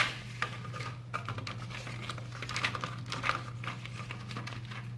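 A thin plastic keyboard membrane sheet being laid onto a keyboard's plastic bottom case: light crinkling and scattered small plastic clicks, with a sharper click at the start.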